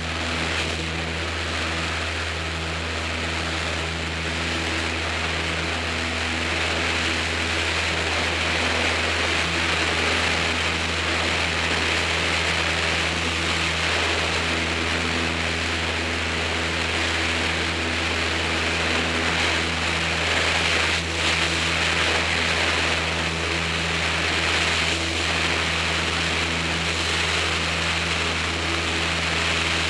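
Light propeller airplane's piston engine and propeller running steadily at takeoff power, a little louder from about eight seconds in.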